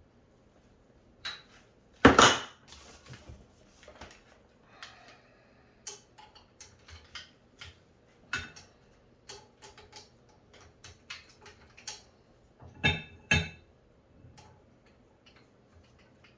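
Metal clinks, taps and knocks of tools and parts being handled while a lathe chuck is swapped, with one loud clank about two seconds in and two heavy knocks near the end.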